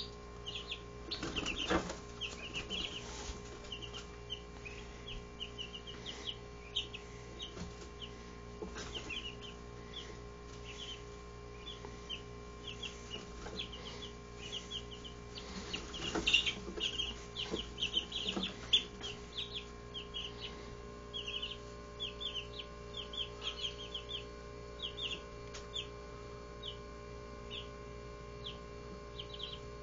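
A brood of 17-day-old Barred Rock chicks peeping steadily, short high chirps several a second, with a few louder rustles in the litter about two seconds in and again around the middle.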